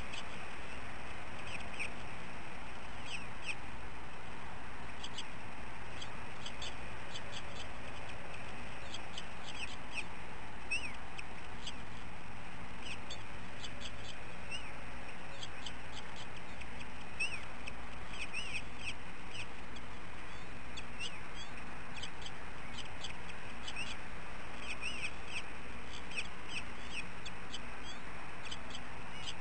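Short, high bird chirps, scattered irregularly throughout, over a steady background hiss.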